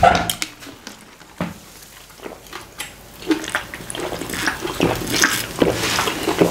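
Water being drunk from a plastic bottle: a run of short, irregular gulps and swallows from about three seconds in. A brief louder sound comes at the very start.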